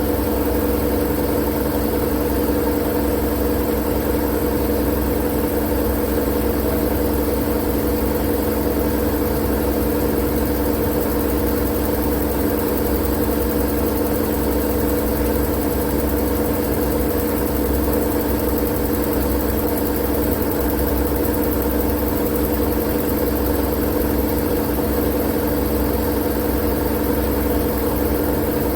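Steady, unchanging mechanical droning hum over a low rumble and a faint hiss, played as a white-noise track for sleep.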